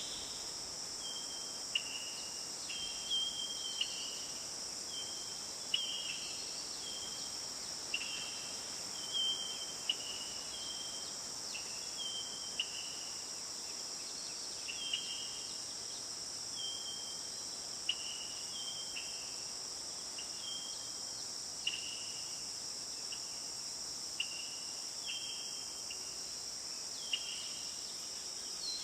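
Steady high-pitched insect chorus, with a bird repeating short stepped chirps about once a second over it, and a few sharp clicks.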